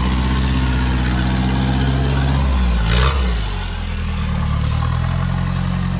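Modified Toyota Hilux 4x4 engine working under load as it crawls up a rutted dirt climb; the engine note dips about halfway, with a short burst of noise about three seconds in, then climbs again.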